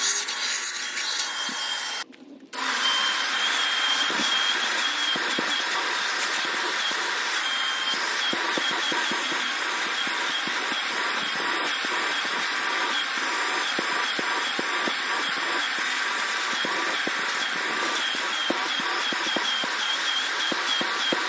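Vacuum cleaner running steadily with a high whine, its hose nozzle scraping over a car seat and then a car floor mat. The sound drops out briefly about two seconds in.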